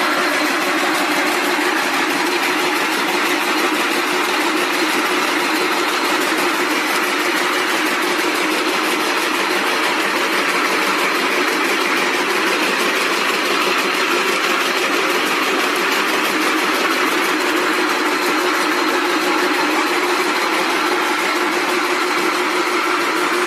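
Rope braiding machines running, their bobbin carriers circling at speed and making a loud, steady, fast mechanical clatter.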